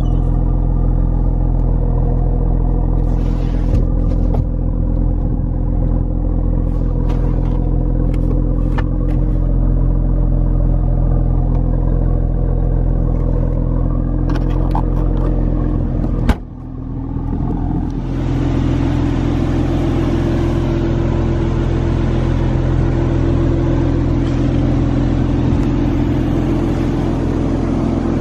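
Mercedes-AMG C43's twin-turbo V6 idling steadily through its performance exhaust. A sharp click comes a little past halfway, after which the idle sounds brighter and hissier.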